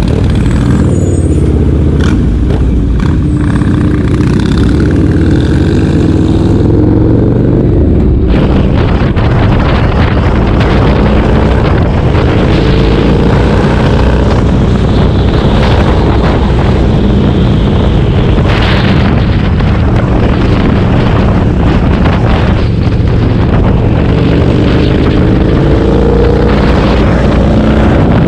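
Motorcycle engine running under way, heard from the rider's seat over road and wind noise. Its pitch climbs as it accelerates, once near the start and again near the end.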